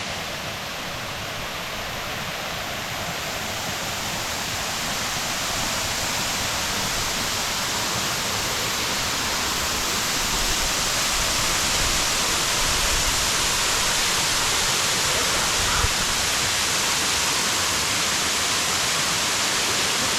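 Waterfall: the steady rush of falling water, growing gradually louder over the first half. A single small knock comes about three-quarters of the way through.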